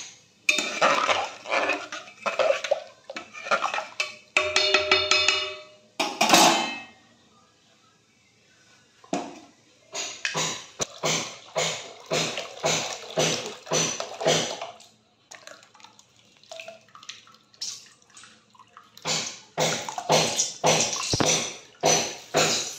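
Cooked sour mango dal (tok dal) being poured from a pot into a pan of tempering spices: a wet pouring and splashing. Through it runs a string of sharp knocks about two to three a second from building work in the house, with a short ringing tone about five seconds in.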